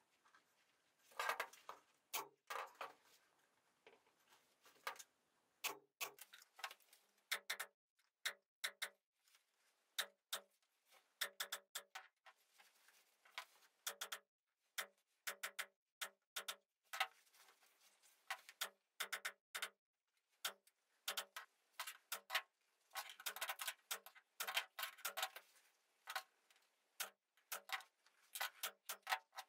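Pneumatic staple gun firing staples through upholstery fabric into a wooden chair frame: a long series of sharp clicks with a short metallic ring, roughly one or two a second, coming in quick runs about a second in and again past two-thirds of the way through.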